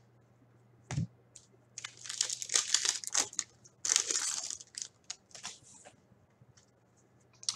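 Foil wrapper of an Upper Deck Series 2 hockey card retail pack being torn open and crinkled by hand, a click about a second in, irregular crackling, a louder rip about four seconds in, then a few smaller crinkles.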